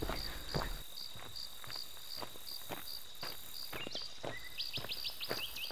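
Footsteps crunching along a gravel trail, over steady insect chirping: a continuous high trill with pulses about three times a second. Near the end a quick run of rising high chirps joins in.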